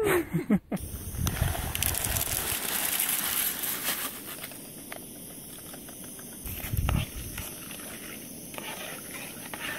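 Steady hiss of a liquid-fuel camp stove burner running under a pot, with the crinkle of a packet being emptied into the pot during the first few seconds and a spoon stirring later on.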